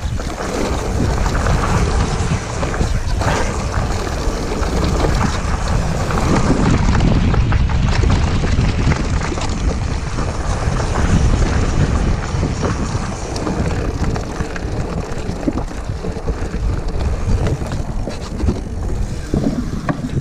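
Wind buffeting a chest-mounted GoPro's microphone as a hardtail mountain bike rolls fast down a dirt trail. Tyres crunch over the dirt, with frequent rattles and knocks from the unsuspended bike over bumps.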